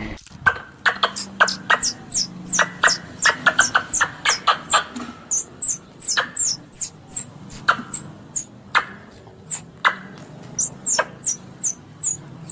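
A small animal giving a rapid, irregular series of short, very high-pitched chirps, each falling in pitch, with sharp clicks among them, about two a second.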